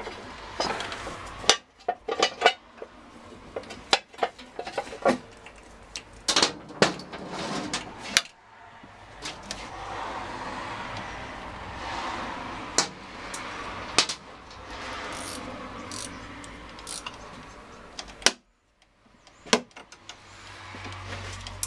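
Metal clinks and knocks of a spanner working on the starter motor's mounting bolts in a motorcycle engine bay, with scraping and rustling in between as hands and tool move among the wiring.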